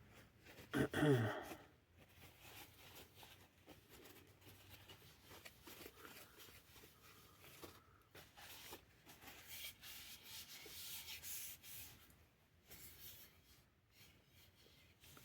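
Faint, uneven rubbing of a rag working boiled linseed oil into a wooden axe handle, busier for a few seconds past the middle. A brief vocal sound about a second in.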